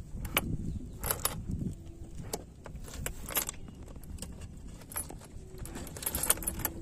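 Steel chain links clinking and rattling against each other and the boat's wooden slats as the chain is handled, in several short bursts about a second or more apart.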